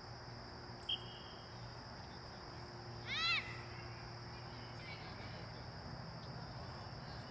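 A young child's short, high-pitched squeal about three seconds in, rising then falling in pitch, over steady outdoor field ambience with a faint high whine; a brief click sounds about a second in.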